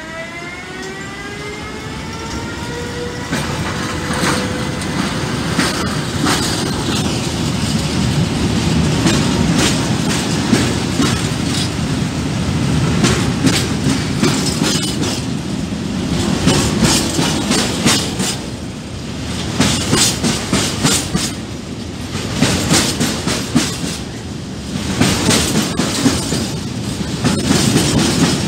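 Siemens Vectron electric locomotive's traction equipment whining with a rising pitch for the first few seconds. Then a train of grain hopper wagons rolls past with a steady rumble and a clickety-clack of wheels over the rail joints.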